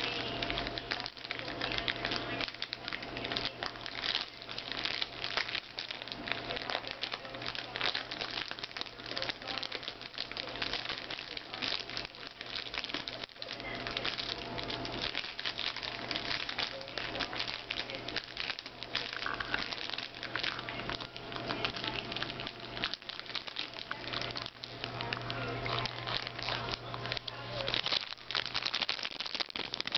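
A puppy chewing and tugging at a foil chip bag: continuous, irregular crinkling and crackling of the bag, with a steady low hum underneath.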